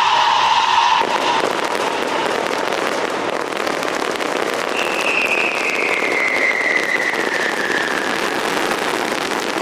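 Fireworks display crackling densely with many small pops. A steady tone stops about a second in, and from about halfway a whistle slides slowly down in pitch for a few seconds.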